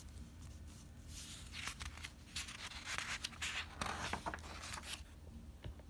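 Paper pages of a picture book being turned by hand: a run of short rustles and brushes from about a second in until near the end.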